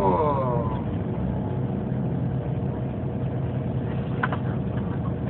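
A falling vocal groan dies away in the first second, leaving the steady low drone of a running engine, with a couple of faint clicks near the end.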